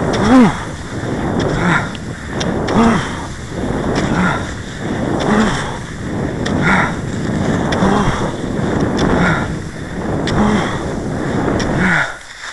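Cross-country skier striding in classic tracks: skis and poles swish over snow in a steady rhythm, about one stride every 1.3 seconds, each with a short, low grunt-like exhale, over wind noise on the microphone.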